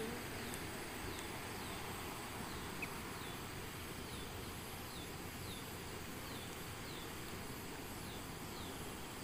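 Outdoor paddy-field ambience: a steady hiss with a short falling chirp repeating about once or twice a second, over a faint, steady, high insect drone.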